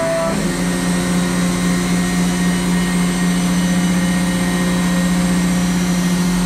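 A machine-shop machine running steadily, its motor giving a constant hum with steady whining tones above it.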